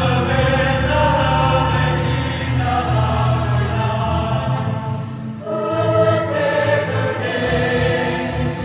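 A choir singing a medley of Indonesian songs in harmony, with sustained low and high parts and a brief break between phrases about five seconds in.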